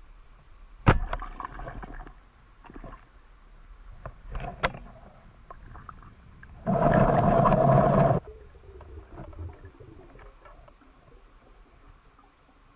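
Underwater handling noise from a spearfisher's gear: a sharp knock about a second in, a smaller click a few seconds later, and a louder muffled rushing burst lasting about a second and a half past the middle.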